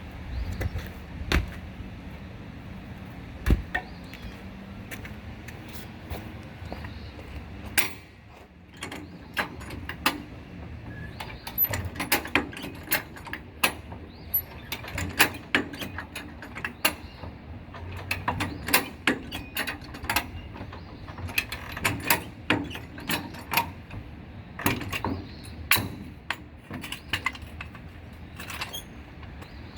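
Irregular sharp metallic clicks and knocks, a few at first and then one or two a second, of hand tools and hardware being handled while working on a trailer wheel.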